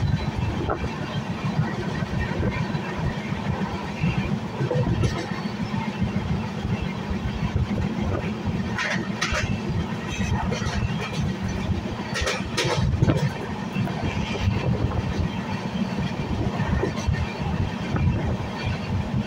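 Passenger train running along the track, heard from on board: a steady low rumble of wheels on rails and rushing air, with a few brief sharper noises about halfway through.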